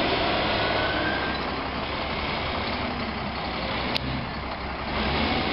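Heavy diesel farm machinery running steadily during maize chopping, the forage harvester, tractors or wheel loader, with a short sharp click about four seconds in.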